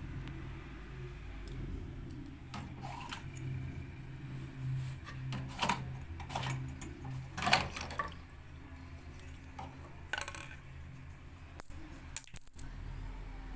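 Scattered light metallic clinks and clicks of small hard objects being handled, the sharpest about halfway through, over a steady low hum.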